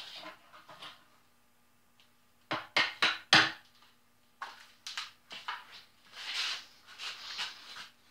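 Metallic clanks and rattles of a bench vise being opened and a bundle of freshly cut light-gauge sheet-metal S-lock pieces being taken out and handled. Four sharp clanks come close together about two and a half seconds in, followed by lighter clicks and scraping rustles of the thin metal.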